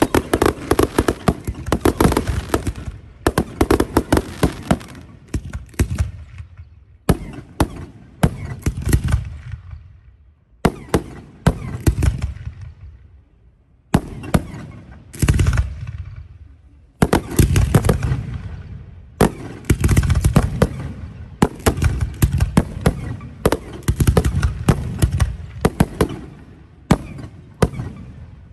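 Aerial fireworks shells bursting in rapid volleys of sharp bangs, with short lulls between salvos.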